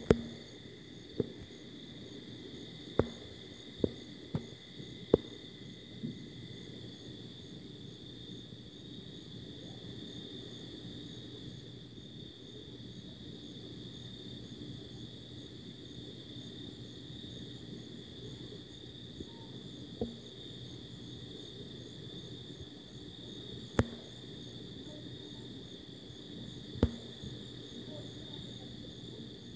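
Steady high-pitched chirring of night insects, crickets or similar, with a faint low hum beneath. A handful of short sharp clicks stand out above it, several in the first few seconds and a few more near the end.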